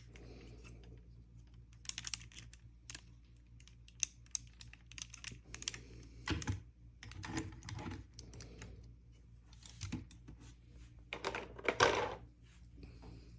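Irregular small plastic clicks and rustling from handling a toy figure and its packaging, with a louder rustle near the end.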